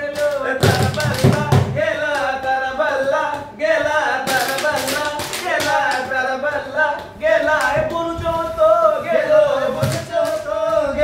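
A Siddi folk song sung live by a group of voices, over repeated percussion strikes.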